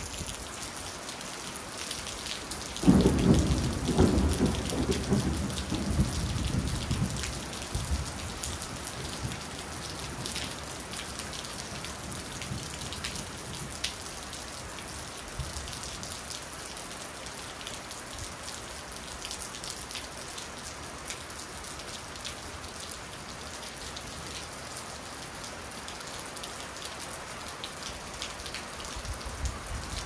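Steady rain falling, with a roll of thunder about three seconds in that rumbles loudly and dies away over the next few seconds.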